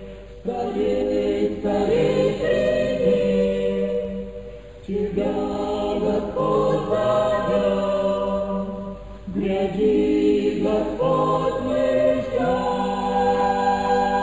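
A choir singing a Russian Christian hymn in three sung phrases, with a short breath between them.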